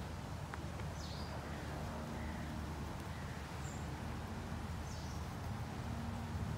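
Outdoor ambience of a steady low rumble, with a few short, high, falling bird chirps: one about a second in, a fainter one in the middle, and another near the end.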